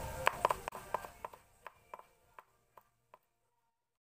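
Cleaver chopping garlic on a wooden board: a string of sharp knocks, several a second at first, then sparser and fainter until they stop a little after three seconds in.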